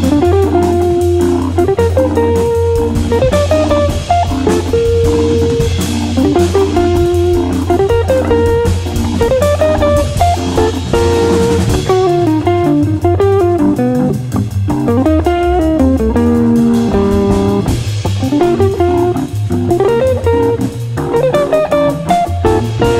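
Jazz-funk organ-trio music: an electric guitar plays melodic lines with slides over a drum kit and a steady low bass line. The cymbals thin out for a few seconds midway, then come back.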